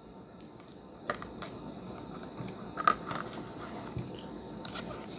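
Small cardboard medicine boxes being handled and set down on a tabletop: a few light taps and clicks, the sharpest about three seconds in.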